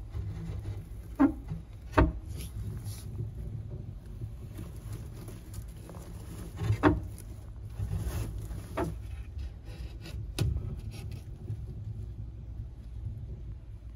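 Yellow-headed water monitor eating quail eggs: a handful of sharp crunches and clicks at irregular intervals over a low steady rumble.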